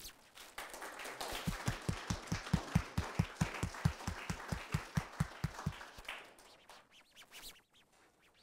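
Audience applauding, with one person's hand claps close to the microphone standing out at about five claps a second. The applause starts about half a second in and dies away after about six seconds.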